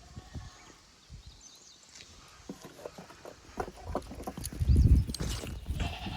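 Goats moving about, hooves clicking, with strong wind buffeting the microphone in a loud low rumble a little past halfway. A goat starts to bleat near the end.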